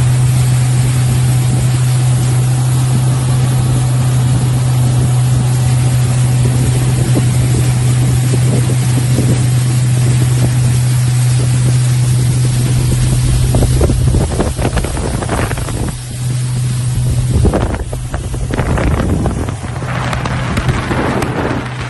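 Small motorboat's engine running steadily under way, a constant low drone under the rush of water and wind. From about two-thirds of the way in, wind buffets the microphone in gusts.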